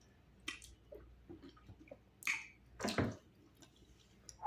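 Scattered short, wet mouth clicks and smacks of eating fufu with slimy ogbono soup, with two louder, sharper ones about two and three seconds in.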